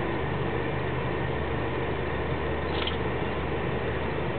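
Steady low hum of a car idling, heard inside its cabin. A short faint high sound comes about two-thirds of the way through.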